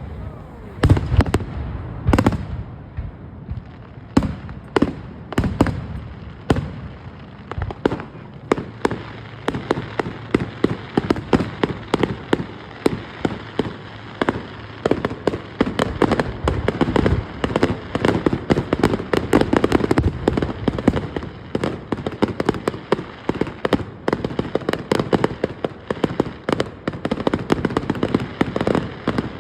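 Fireworks going off: a few separate loud bangs in the first seconds, then a dense, rapid crackle of sharp pops, several a second.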